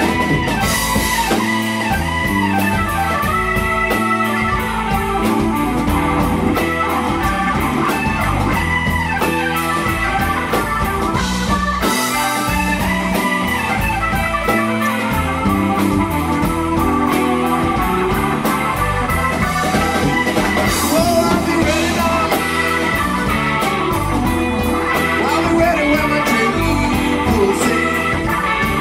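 Blues-rock band playing: electric guitar, bass and drums with organ.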